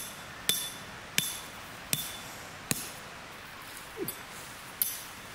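Metal tent peg being hammered into the ground: sharp metallic strikes, each with a short ring. Four come in steady succession about three-quarters of a second apart, then one more after a pause near the end.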